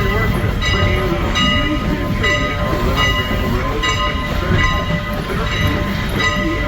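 Steam-hauled passenger train running, with a steady loud rumble of the cars on the rails. Over it a bell-like ringing repeats at an even beat, about every three-quarters of a second.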